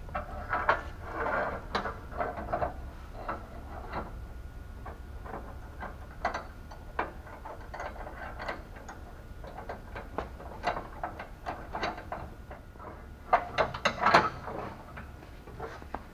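Irregular metal clinks and clicks of hand tools and steel steering parts being handled and fitted onto a go-kart frame, with a quick run of clicks near the end.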